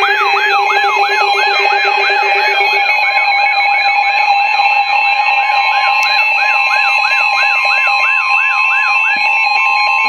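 Several NOAA weather alert radios sounding their alarms at once: a falling chirp repeating about three times a second over steady electronic tones, signalling an incoming warning. A low tone drops out about three seconds in, and the chirping stops shortly before the end, leaving the steady tones.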